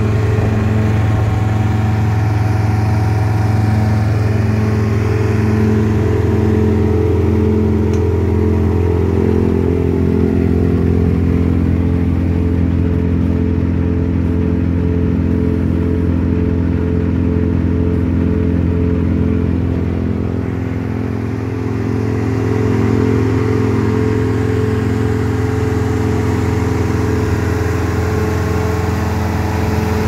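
Forst ST6 woodchipper's Kubota V1505 four-cylinder diesel engine running at a steady speed, a low drone with an even pulsing over it. The level dips slightly about two-thirds of the way in.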